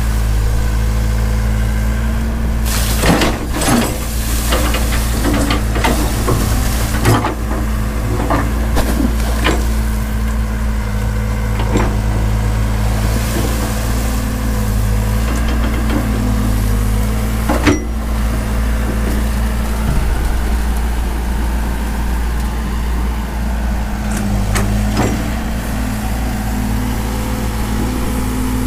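Diesel engines of two tracked excavators, one a Komatsu PC130, running steadily while digging. Scattered sharp knocks come through the drone, several in the first seven seconds and the loudest about eighteen seconds in.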